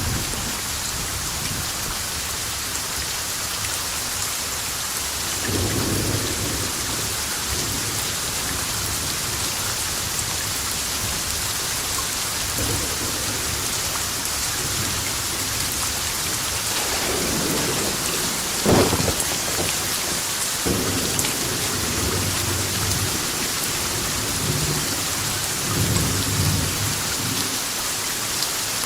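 Steady heavy rain hissing, with thunder rumbling several times; a sharp thunderclap about two-thirds of the way through is the loudest moment.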